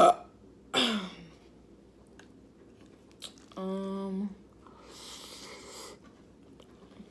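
A woman eating. About a second in comes a short vocal sound falling in pitch. Just past the middle she gives a steady hummed 'mmm', followed by a breathy exhale, with soft chewing in the quieter stretches.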